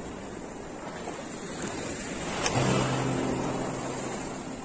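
Small waves washing in shallow water with wind on the microphone. About halfway through, a short knock is followed by low held notes of background music starting up.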